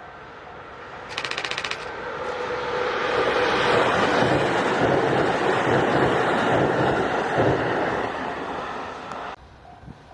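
Japanese railway level-crossing bell ringing in a steady repeating pattern, with a brief rapid rattling burst, as a Tokaido Main Line train approaches and passes the crossing. The train's rushing wheel and motor noise swells over a couple of seconds, stays loud, then cuts off suddenly near the end, leaving the crossing bell ringing again.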